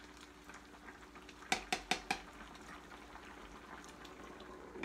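A plastic ladle stirring soup in a nonstick skillet, knocking against the pan four times in quick succession about a second and a half in, with one more clink near the end, over a faint steady hum.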